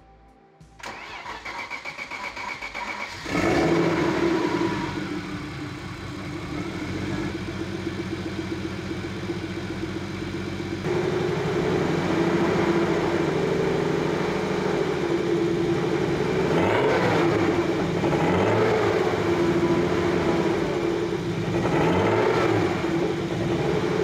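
Turbocharged BMW E36 engine cranked by its starter for about two seconds, then catching about three seconds in with a short rev and running steadily, a little louder from about halfway. It is being started to bleed air from its newly refilled cooling system.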